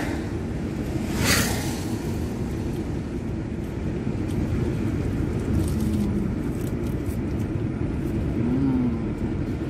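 Steady low road and engine rumble inside a moving car's cabin, with one short noisy burst about a second in and a few faint ticks later on.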